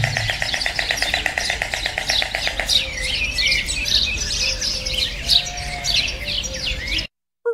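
Small birds chirping: a fast, even trill for the first few seconds, then scattered high chirps and whistles, cutting off suddenly near the end.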